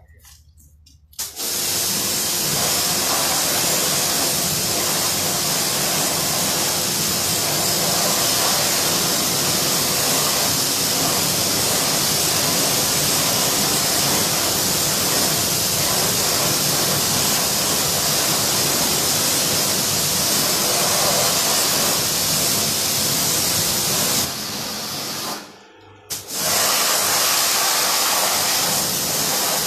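Pressure washer jet blasting water onto a car's alloy wheel, a loud steady hiss that starts about a second in, stops for a couple of seconds near the end, and starts again. The jet is rinsing a spray-on wheel cleaner off the rim.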